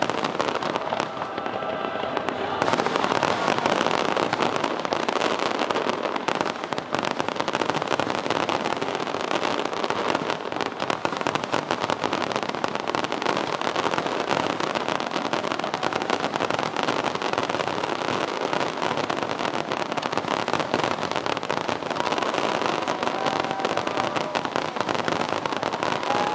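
Aerial fireworks display: a dense, unbroken barrage of shell bursts and crackling with no gaps between them.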